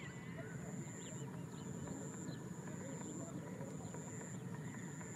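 Outdoor ambience: scattered faint bird chirps over a low steady rumble, with a thin high buzz that comes and goes about once a second.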